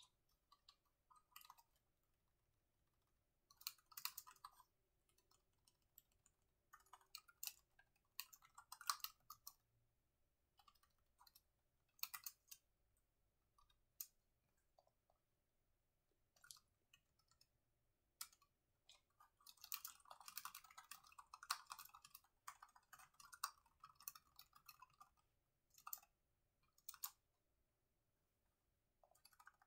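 Faint typing on a laptop keyboard, keystrokes coming in short bursts separated by pauses, with the longest, densest run about two-thirds of the way through.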